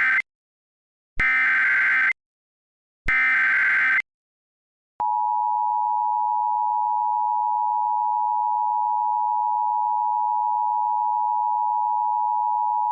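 Emergency Alert System header: the end of one screechy burst of SAME digital data tones, then two more one-second bursts about a second apart. About five seconds in, the EAS two-tone attention signal starts, a steady dual tone held for about eight seconds.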